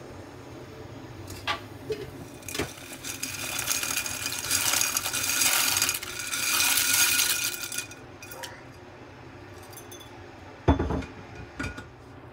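Dry pasta rattling and clinking out of a glass jar into a pot of water for about five seconds. A sharp knock follows near the end, with a smaller one after it.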